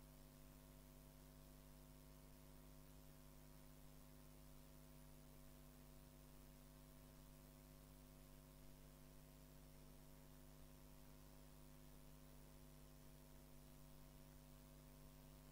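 Near silence with a faint, steady hum that does not change.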